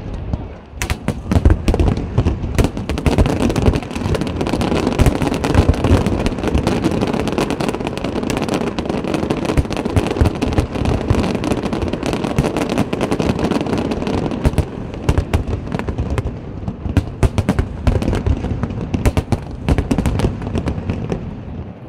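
Fireworks display: aerial shells bursting in a dense barrage of rapid, overlapping bangs and crackles. After a brief lull about half a second in, the barrage is nearly continuous, thinning only at the very end.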